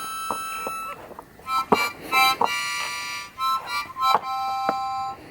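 Harmonica being played: chords of several notes held for about a second at a time, with short breaks between phrases and a few sharp clicks among them.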